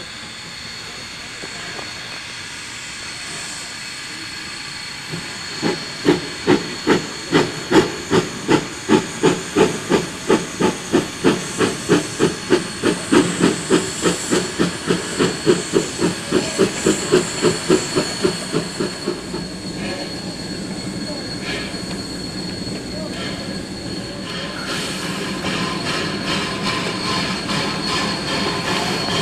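Baldwin-built 1881 D&RGW No. 346, a narrow-gauge 2-8-0 steam locomotive, working a short freight train. Its exhaust chuffs come evenly at about three a second from around six seconds in until about nineteen seconds, then give way to a steady hiss and the rolling of the train.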